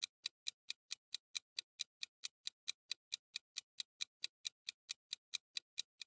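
Ticking-clock sound effect marking the countdown of a quiz's thinking time: quick, even ticks, about four or five a second.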